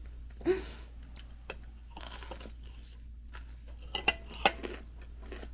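Chewing and crisp, irregular crunches from eating deep-fried shrimp and vegetable fritters (ukoy).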